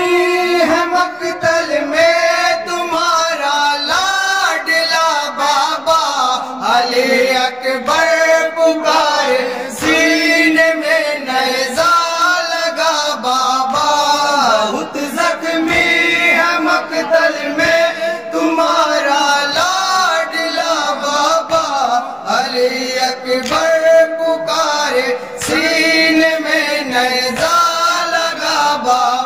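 Men chanting a Muharram noha (mourning lament) into a microphone, sung without a break, with a steady beat of thuds about once a second under the voices.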